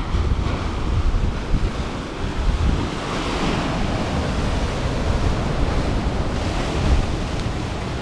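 Heavy sea swell breaking against rocks and washing back over them, the hiss of the surf swelling as waves break, about three seconds in and again near seven seconds. Wind buffets the microphone with a low rumble throughout.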